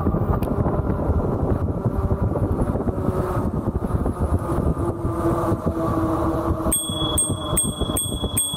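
Wind buffeting the microphone and tyre rumble of an Ariel Rider Kepler V2 e-bike running on pavement at around 20 mph, with a faint motor whine that sags a little in pitch as it slows. Near the end, a bicycle bell is rung five times in quick succession, its ring lingering briefly after the last strike.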